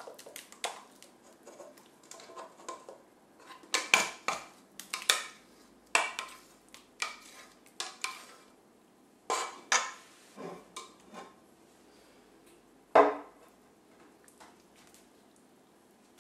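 A spoon scraping and knocking against a stainless steel saucepan as thick cooked apple filling is emptied out of it: a dozen or so irregular sharp clinks, the loudest about 13 seconds in, then only faint sound.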